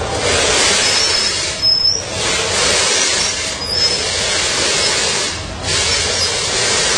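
Automatic powder packing machine running, a loud steady mechanical noise with short high squeaks about two seconds in and again near four seconds.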